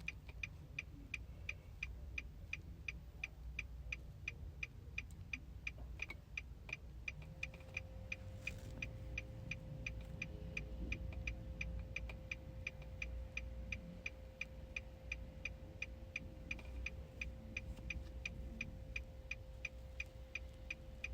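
Hazard-light flasher of a 2013 Nissan Titan clicking in an even rhythm, about three clicks a second, over a low rumble. A faint steady hum joins about seven seconds in.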